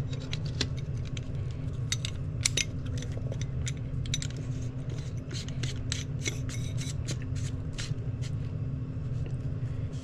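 Scattered light metallic clicks and scrapes of a blow-off valve's parts being lined up and fitted back together by hand, over a steady low hum.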